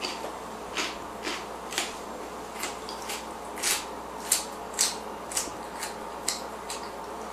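A person chewing raw baby carrots: crisp crunches, about two a second.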